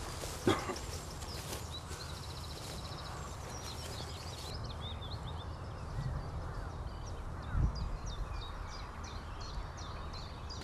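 Several small birds singing: many quick high chirps and a short rapid trill, over a steady low rumble. A dull thump comes just after the start and another about three-quarters of the way through.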